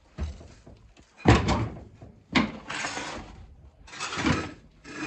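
C4 Corvette spare tire carrier being lowered and slid out along its ramp: four clunks, with about a second of scraping after the second.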